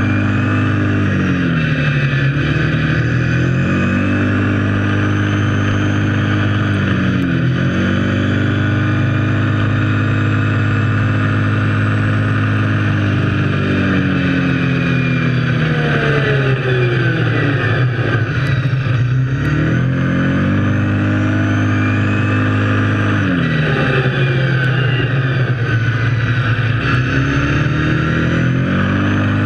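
Kawasaki KFX 700 quad's V-twin engine running under way, its pitch dropping and climbing back several times as the throttle is eased off and reopened, with a longer easing off around the middle.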